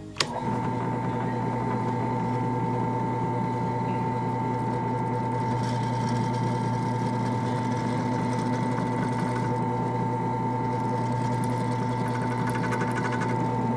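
A small electric motor switched on with a click, running at a steady, unchanging pitch.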